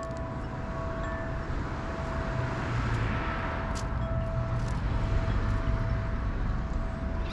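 Outdoor ambience: a vehicle passing, its rumble and hiss swelling about halfway through and then fading, while a wind chime's tone rings on.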